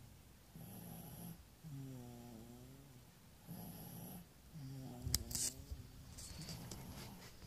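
A man snoring in his sleep while congested with a cold: about three slow breaths, each a breathy hiss followed by a low, pitched snore. A few sharp clicks sound about five seconds in.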